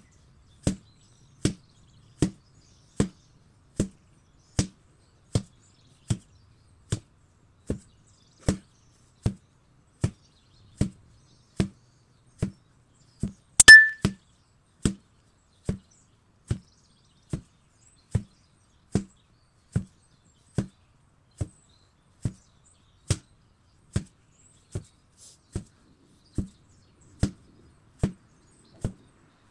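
8 kg sledgehammer striking in a steady rhythm, a little over one blow a second, each a short dull thud. About midway one blow is much louder and sharper, with a brief ringing clank.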